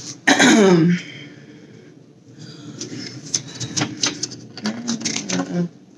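Paper leaflets and booklets rustling and crackling as they are handled and leafed through, with many short sharp clicks. A short voiced sound falling in pitch comes about half a second in, and there is low murmured speech in the second half.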